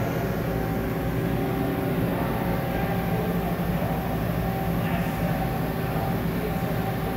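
VC630 CNC vertical machining centre standing powered up and idling: a steady machine hum with several constant tones.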